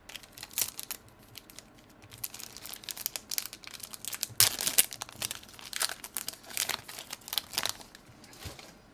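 A Yu-Gi-Oh booster pack's foil wrapper crinkling and tearing open in the hands: a run of sharp crackles, loudest about halfway through.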